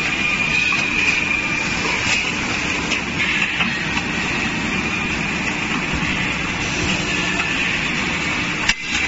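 Factory machinery on a steel drum band production line running: a steady mechanical din with a low hum and a high whine, broken briefly near the end.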